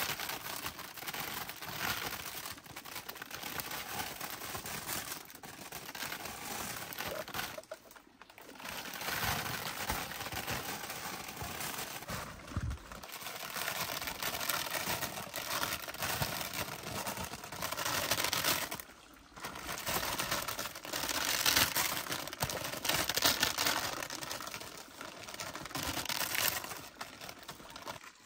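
Continuous rustling and crinkling handling noise, broken by two short pauses.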